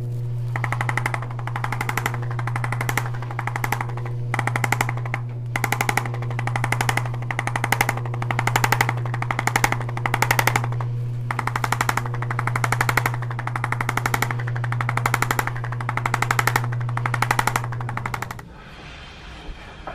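Handheld electric percussion massager running: a steady motor hum with rapid hammering pulses that come in bursts of about a second with short breaks, then the motor cuts off near the end.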